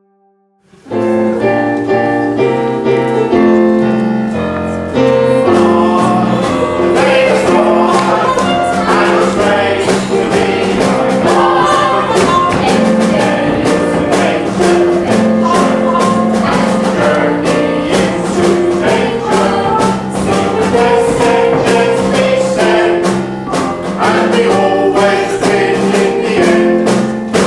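Upbeat music from a small live band, a melody of pitched notes over a regular percussion beat, starting about a second in.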